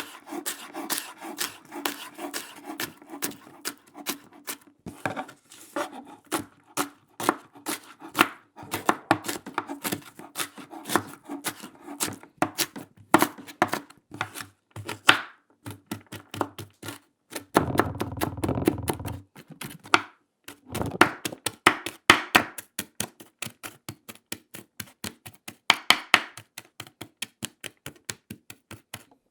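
Kitchen knife chopping Korean radish on a wooden cutting board: a long run of sharp, quick knife strikes, often several a second, broken by short pauses. About two thirds of the way through there is a short, noisier stretch of about two seconds.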